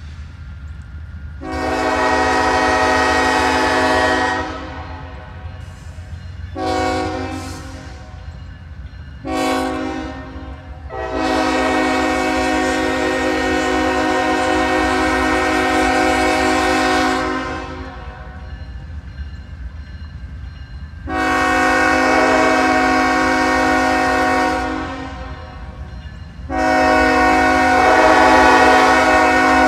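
Diesel locomotive air horn sounding a series of blasts for a grade crossing: a long blast, two shorter ones, then a very long blast and two more long ones, the last still sounding at the end. The approaching train is distant, so the horn carries over a steady low rumble.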